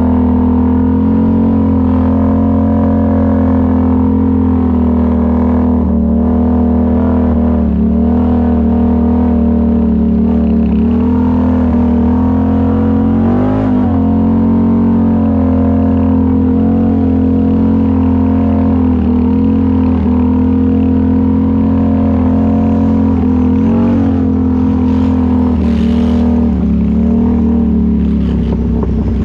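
ATV engine running loud and steady at a fairly constant speed, its pitch dipping slightly now and then and wavering briefly about halfway through.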